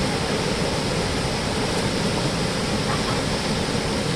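Steady rush of a large river flowing, an even unbroken noise.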